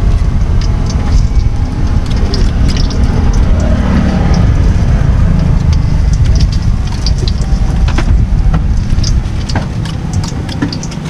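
Orange-battered balls deep-frying in a pan of hot oil, with many short crackles. A loud low rumble runs underneath and fades near the end.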